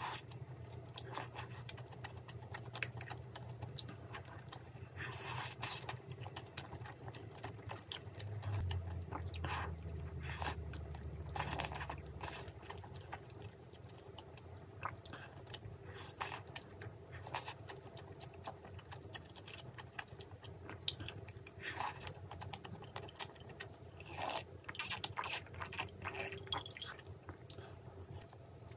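Close-miked chewing and biting of soft, chewy tteokbokki rice cakes and glass noodles in spicy mala sauce, with many irregular wet mouth clicks and smacks.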